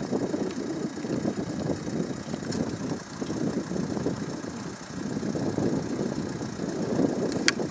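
Mount Etna erupting: a continuous low rumble from lava fountaining and explosive spattering at the summit crater, swelling and easing in waves. A brief sharp click comes near the end.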